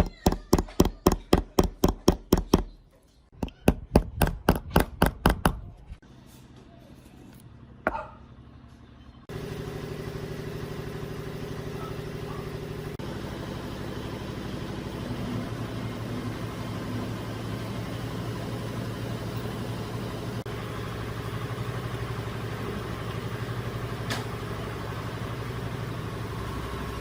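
Rapid, even hand-tool strokes at about five a second, in two runs of a few seconds each. About nine seconds in, an electric power tool switches on and runs steadily with a motor hum until the end.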